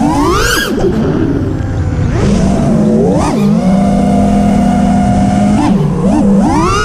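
FPV quadcopter's motors and propellers whining steadily, with sharp rising-and-falling pitch swoops as the throttle is punched about half a second in, at about three seconds, and twice more near the end.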